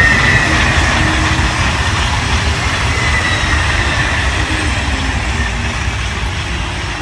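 TGV high-speed train passing and moving away: a steady rush of wheel and air noise with a high whine that slowly falls in pitch, fading gradually.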